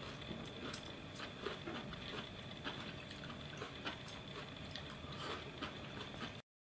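Quiet eating sounds: chopsticks clicking and scraping faintly against ceramic rice bowls, small scattered clicks over a steady faint room hum. The sound cuts out to silence near the end.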